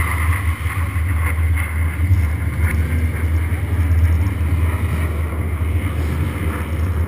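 Steady low rumble of a Jeep engine idling, heard from a camera mounted on the vehicle, with some wind on the microphone.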